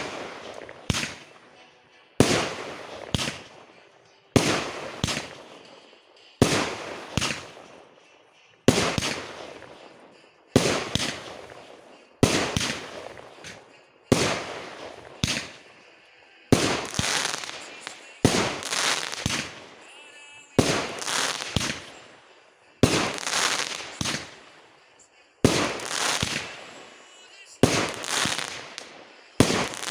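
Fireworks going off in a steady series: a sharp bang about every two seconds, each followed by a few smaller bangs that fade away.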